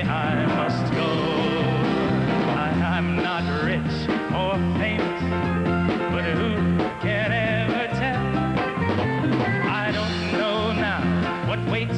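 Band accompaniment to a folk-pop ballad, with a steady bass beat under wavering melody lines, in an instrumental stretch between sung lines.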